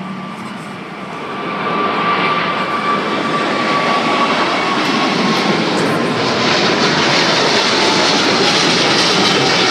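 Boeing 777 twin-engine jet airliner climbing out after takeoff, its engines at takeoff power. The engine noise swells about a second and a half in and then holds loud, with a high whine that slowly falls in pitch as the jet passes.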